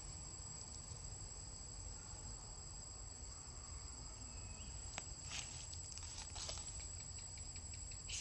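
Steady high-pitched insect drone, like crickets, over a low rumble, with a click about five seconds in and brief rustling after it.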